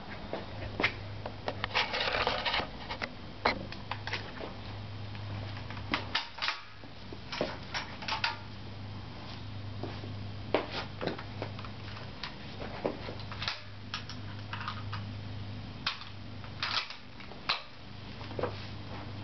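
Handling noise: scattered clicks, knocks and a short rustle as the camera is set down and the man moves about with the rifle, over a steady low hum. No shot is fired.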